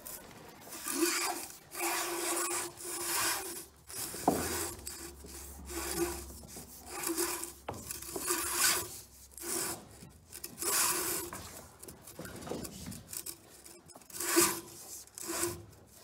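10 mm three-core armoured cable being pushed into a duct, scraping and rubbing against it in a series of strokes about once a second.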